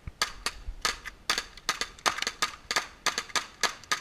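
Airsoft guns firing, a fast irregular string of sharp pops about five a second.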